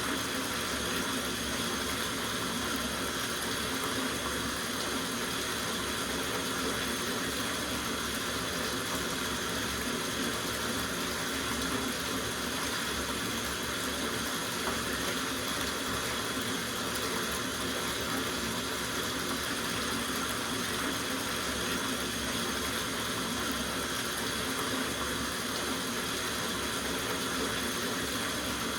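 Tap water running steadily into a soaking bathtub, an even, unbroken splashing rush.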